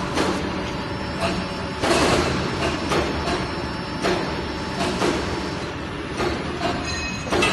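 Plastic injection molding machine running, with a steady mechanical hum and irregular clanks and knocks about once a second.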